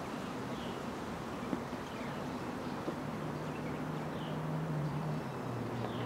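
Outdoor lakeside ambience: a steady low hum of a distant engine, with another droning tone coming in about halfway, and short bird chirps every second or two.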